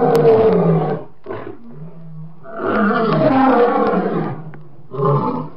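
Male lion roaring: three drawn-out, moaning roars, the middle one the longest, with a low grunt between the first two.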